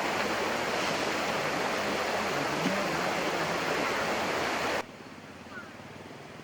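Stream water flowing steadily, cutting off abruptly near the end to a much quieter background.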